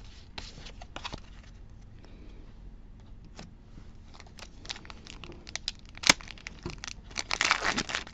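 Trading cards being handled with scattered light clicks and taps, then from about seven seconds in a Pokémon TCG Fusion Strike booster pack's wrapper crinkling loudly as it is torn open.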